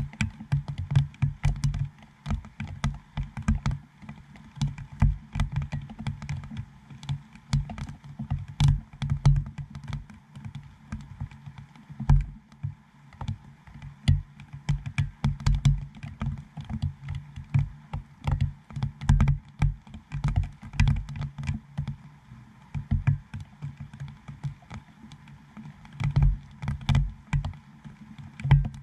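Raindrops striking a GoPro dome port on a GoPro Hero7 and picked up through the camera body: irregular hard taps, several a second, each with a dull low thud.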